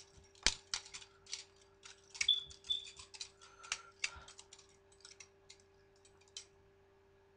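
Butterfly knife being flipped: rapid metal clicks and clacks as the handles swing round and slap together. The clicks are busiest in the first four seconds, thin out, and stop about six seconds in.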